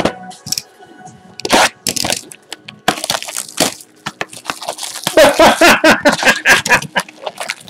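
A cardboard trading-card box being cracked and torn open by hand: a series of sharp cracks and tears, thickening into a quick run of tearing and rustling for the last couple of seconds.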